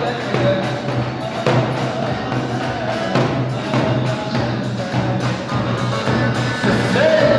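Dance music with a steady, evenly pulsing drum beat under a wavering melody line.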